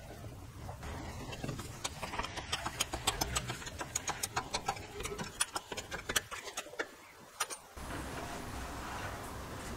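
A shop press forcing a white plastic bearing housing onto the shaft of a cylinder mower reel: a run of quick, irregular clicks and creaks. It stops shortly before a steady faint hiss takes over near the end.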